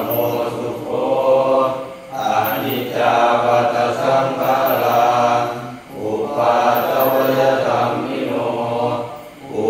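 Buddhist chanting in Pali on a near-steady recitation pitch, in phrases a few seconds long, broken by short pauses for breath about two seconds in, about six seconds in, and near the end.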